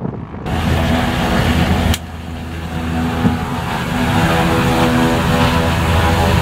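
Piston propeller engine of a small seaplane heard from inside the cabin, a steady engine drone. It drops suddenly about two seconds in, then builds up and holds steady.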